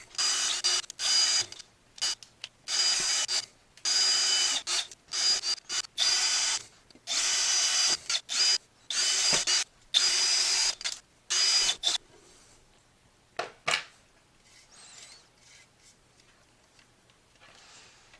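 Power drill run in many short bursts, its motor whining up and cutting off again and again as a row of holes is drilled through the speaker's base. After about twelve seconds the drilling stops, leaving a couple of sharp clicks and faint rustling.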